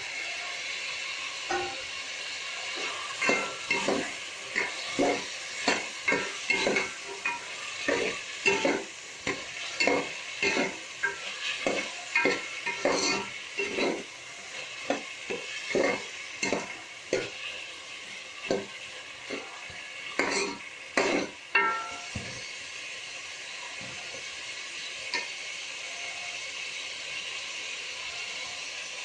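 Diced vegetables sizzling in hot oil in a pot, with a ladle stirring and scraping against the pot in quick repeated strokes. The stirring stops a few seconds before the end, leaving only the steady sizzle.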